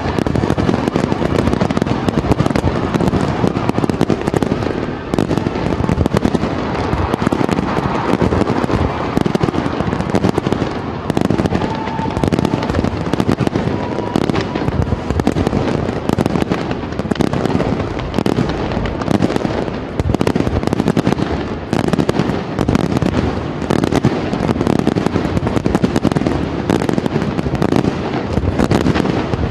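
Aerial fireworks display: a dense, continuous barrage of bursts and crackling.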